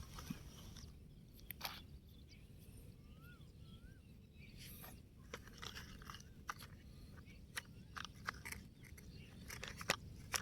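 Scattered small crunches, clicks and scrapes of plastic toy vehicles being handled and pushed over gritty ground, over a low steady rumble. Two faint bird chirps about three and a half seconds in.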